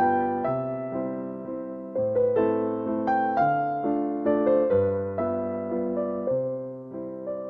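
Background piano music: a slow, gentle melody of struck notes over sustained chords, each note fading after it is played.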